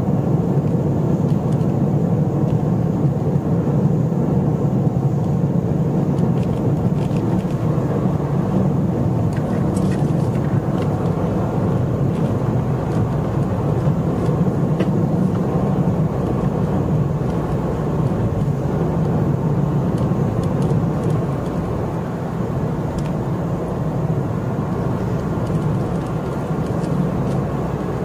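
2012 Ford Fiesta driving along at a steady pace, heard inside the cabin: a continuous low drone of engine and tyre noise that dips slightly in level about two-thirds of the way through.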